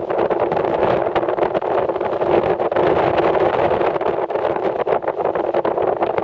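Steady rush of wind and snow on a body-worn POV microphone while riding downhill through deep powder, with many short clicks and knocks scattered through it.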